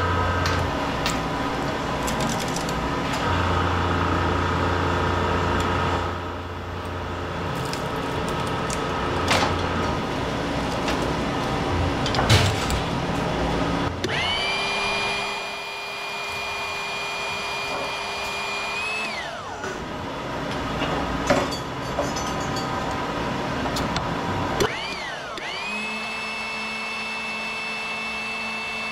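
Metal knocks and clanks over a low hum. About halfway through, a motor-driven machine spins up with a rising whine, runs steadily for about five seconds and winds down. Near the end it spins up and runs steadily again.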